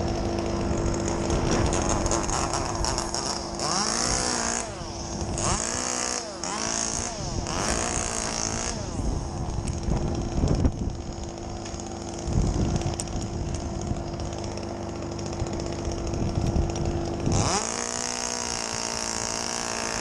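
Petrol chainsaw idling and being revved repeatedly, its pitch rising and falling with each blip of the throttle. Near the end it is opened up and held at high revs.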